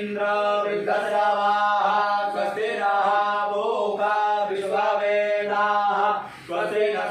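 Hindu devotional chant sung in short repeated phrases over a steady low drone, with a brief pause about six seconds in.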